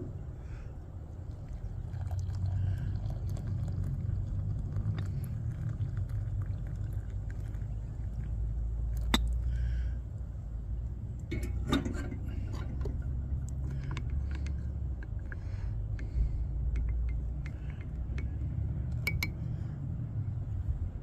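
A steady low rumble, with a few short sharp knocks of glassware and a cup being handled spread through it.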